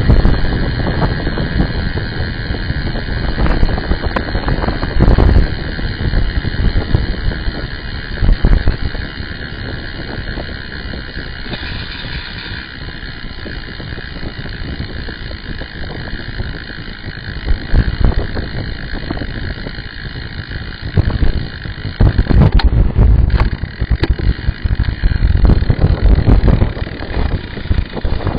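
Wind rumbling over the microphone of a camera riding on a moving road bike, with road noise from the tyres. The rumble comes in uneven gusts, loudest over the last several seconds.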